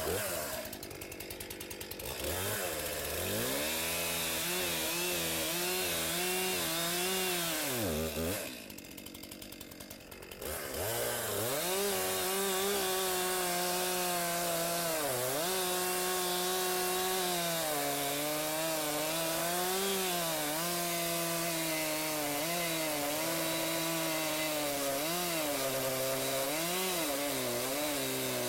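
Chainsaw cutting the angled top of a felling notch into a dead ash trunk: it idles briefly, revs up and cuts for about six seconds, drops back to idle for a couple of seconds, then revs up and cuts steadily again, its pitch dipping now and then as the chain bites.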